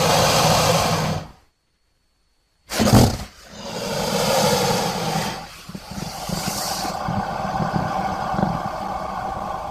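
Designed creature vocalisation for the prehistoric amphibian Eryops, built from crocodilian and wild boar recordings. A brief growl is followed by a second and a half of silence, then a short sharp burst and a long rough growl lasting about six seconds.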